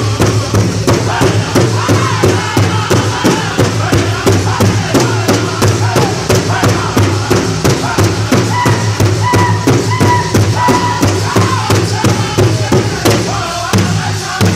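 A powwow drum group of men singing together in high chorus while striking one large hide-covered drum in a steady, even beat. Around the middle, a few short high steady tones sound over the song.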